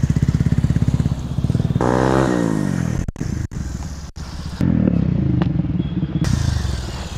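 Motorcycle engine running with a fast, even pulse, its pitch falling about two seconds in as the revs drop for a rolling stoppie. The sound cuts out briefly a few times around three to four seconds, then the engine runs again.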